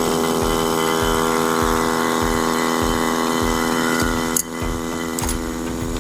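Refrigerant vacuum pump running steadily while evacuating an air conditioner's refrigerant lines, a steady mechanical hum with an even tone. About four and a half seconds in there is a click, and the sound drops in loudness and changes character.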